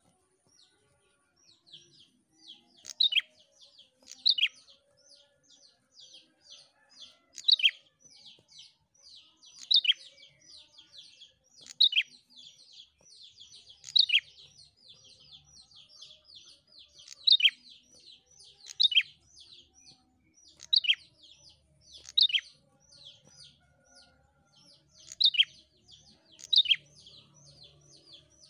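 A caged prenjak, a small long-tailed songbird, singing non-stop: a rapid chatter of short high notes, with a louder sharp falling note every second or two.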